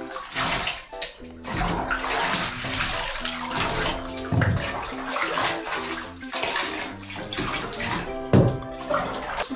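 Bathwater poured from a plastic bath dipper over a golden retriever standing in a filled bathtub, splashing and running back into the tub as she is rinsed, over background music.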